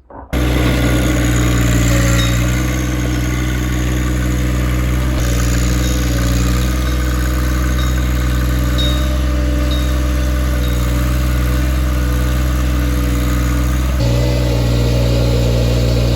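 Tractor engine running steadily at work, its note shifting slightly about five seconds in and again near the end.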